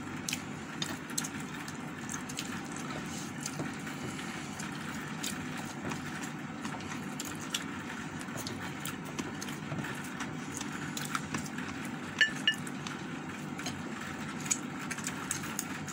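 Eating by hand: fingers pulling apart roast chicken and rice on a plate, with many small wet clicks and smacks, over a steady background hum. A brief clink comes about twelve seconds in.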